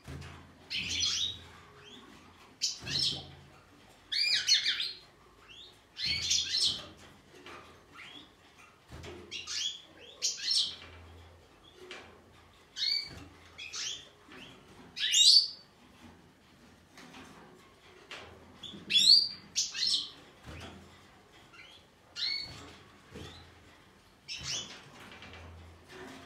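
Caged goldfinches of the large eastern race Carduelis carduelis major chirping and twittering in short high phrases, one every second or two.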